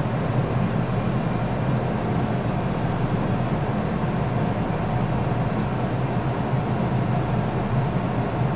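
Steady, even drone of cooling fans in a room of rack-mounted network switches.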